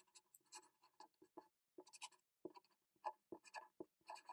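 Black felt-tip pen writing in cursive on a sheet of paper: faint, short scratchy strokes in an irregular run.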